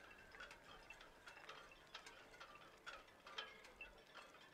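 Very faint background music: soft ticking percussion with brief chime-like notes.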